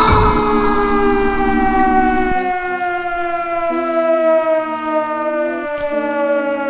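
A siren wailing on one long tone that falls slowly and steadily in pitch as it winds down.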